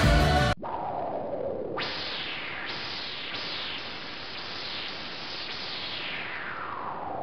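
A song cuts off about half a second in. It gives way to an electronic effect: a hiss of static with sweeping tones that keep falling in pitch, and one long downward sweep near the end.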